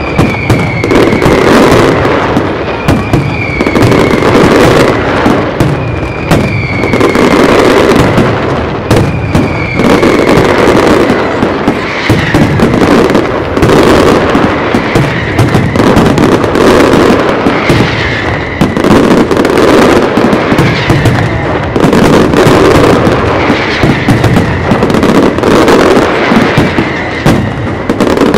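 A professional aerial fireworks display fired in a dense, continuous barrage of bangs and crackling, with a short falling whistle every few seconds.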